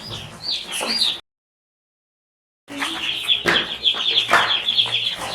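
A crowd of young chicks peeping, many short, shrill chirps overlapping in a dense chorus, with a few knocks mixed in. About a second in, the sound drops out completely for roughly a second and a half.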